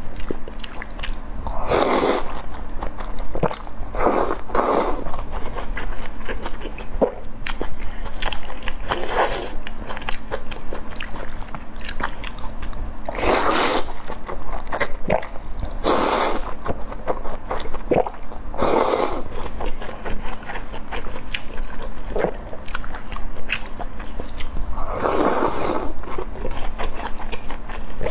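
Close-up eating sounds: wet slurping of pork slices from spicy broth, with loud slurps every few seconds, chewing between them, and small clicks and scrapes of chopsticks against a glass bowl.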